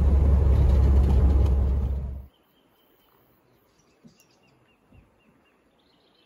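Road and engine rumble heard from inside a moving vehicle, a steady low drone that cuts off abruptly about two seconds in. It gives way to faint outdoor quiet with a thin high steady tone and a couple of soft small sounds.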